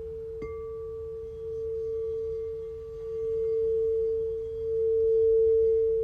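Crystal singing bowl held on one steady low tone that swells and fades in slow waves as it is played. About half a second in, a light strike adds a fainter, higher ringing tone above it.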